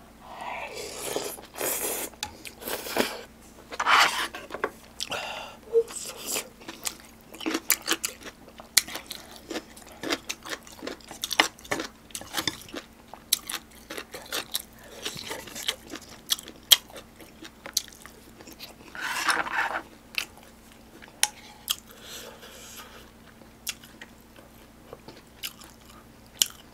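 Close-miked eating sounds: noodles slurped from a bowl of spicy beef soup (yukgaejang), and wet chewing with many small crisp crunches and smacks. The slurps come in the first few seconds and again, longer, around two-thirds of the way through.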